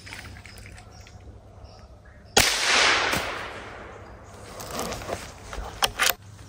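A single sharp .22 rimfire rifle shot about two and a half seconds in, followed by a rush of rustling noise that fades over about a second and a half. Two sharp clicks come near the end.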